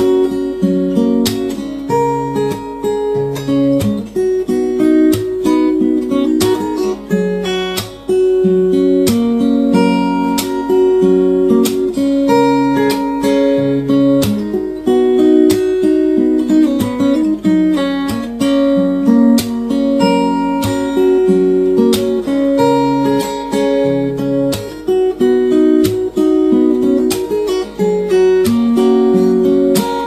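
Background instrumental music: a melody of plucked string notes and chords, played in an even rhythm.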